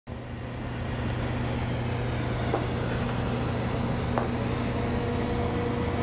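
A steady mechanical hum with a faint higher tone over an even rushing noise, fading in over the first second, with a few faint clicks.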